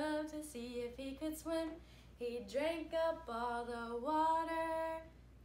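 A woman singing a children's song unaccompanied, in held notes that step up and down, with a short break about two seconds in and a long held note near the end before she stops.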